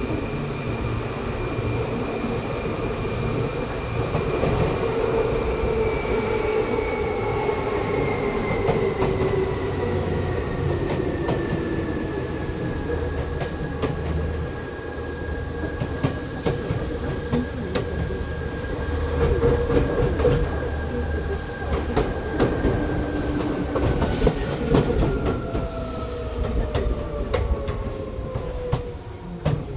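Seibu 2000 series electric commuter train running on the rails, wheels clattering over the track. Its motor whine falls slowly in pitch through the second half as the train slows.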